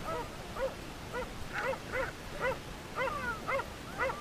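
A sled dog yipping over and over, short high yelps coming about two a second.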